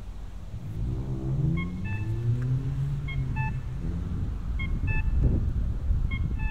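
A car engine passing, its pitch shifting as it drives by over a steady traffic rumble. A short two-note electronic beep, a higher note then a lower one, repeats about every second and a half.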